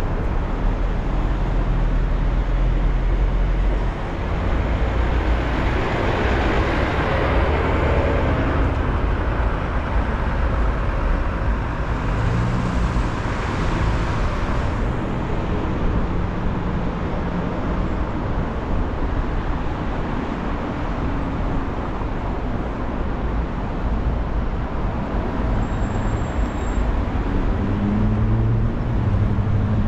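Steady freeway driving noise of a moving car: tyre and wind roar mixed with surrounding traffic. A deep rumble drops away about four seconds in, and the noise swells twice, once around the middle of the first third and again a few seconds later, as vehicles pass close by.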